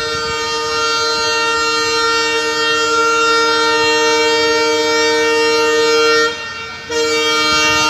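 WDG-3A diesel locomotive's horn sounding loudly in a long steady blast that stops about six seconds in, then starts again with a second blast after a break of about half a second.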